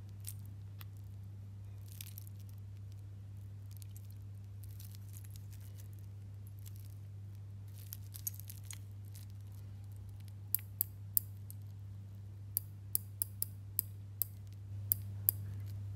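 Invicta Pro Diver's stainless steel unidirectional bezel being turned step by step by thumb: about a dozen sharp, separate clicks, starting about ten seconds in. Before that, only faint metal handling sounds from the watch and bracelet.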